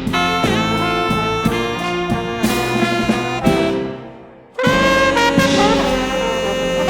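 Live jazz quintet playing, with trombone and saxophone lines over piano, bass and drums. The band fades away briefly about four seconds in, then comes back in suddenly and loud.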